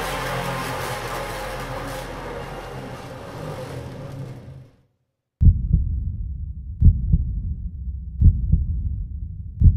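A ringing music-like soundtrack sound fades out over the first four to five seconds. After a brief silence, a low heartbeat-like pulse begins: paired thumps about every one and a half seconds.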